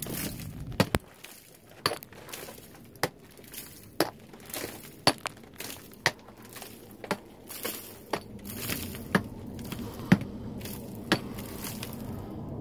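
A metal hand tool chipping at rock, with sharp strikes about once a second in a steady rhythm.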